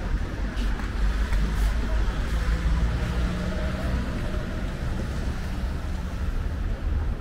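City street traffic noise: a steady rumble of vehicles on the road, with wind buffeting the microphone.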